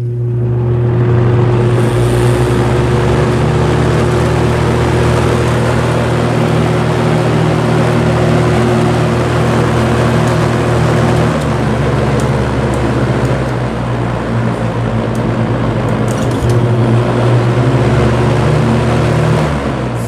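Lakewood S-223 box fan with a Westinghouse motor running, a steady rush of air from its plastic blades over a strong, steady motor hum. It reaches full speed in the first second. The hum is the humming issue that leaves the owner unsure about the motor.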